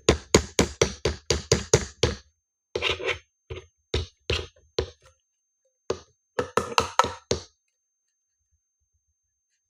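Rapid series of sharp taps or knocks on a hard object, about five a second at first, then in shorter clusters, stopping abruptly about seven and a half seconds in.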